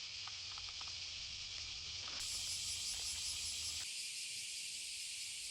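Summer cicadas shrilling in a dense, steady chorus. A second, pulsing insect call joins in higher up about two seconds in. A low rumble underneath stops about four seconds in.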